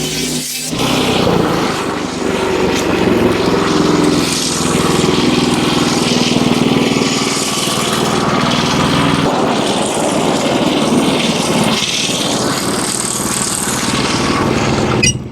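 Wood-Mizer LX25 band sawmill running under load, its engine steady while the band blade cuts through a hemlock beam.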